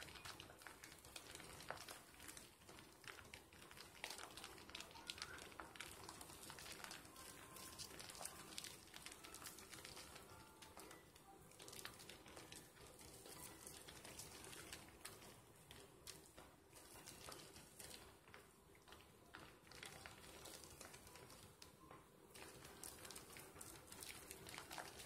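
Faint wet squishing and crackling of thick soap lather from Dove and Caress soap slivers being worked between hands, a steady scatter of tiny clicks and pops.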